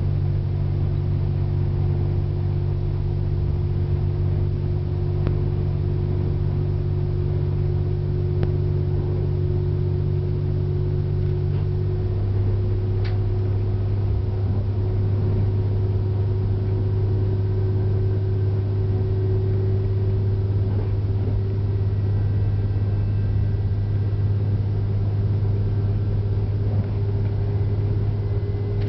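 KTR001 series diesel railcar running under way, heard from behind the cab: a steady low engine drone with a tone that slowly rises in pitch as the train gathers speed. The low note shifts about twelve seconds in.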